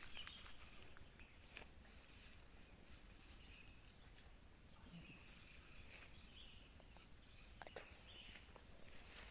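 Insects chirring in a steady, high-pitched drone, with a few faint clicks.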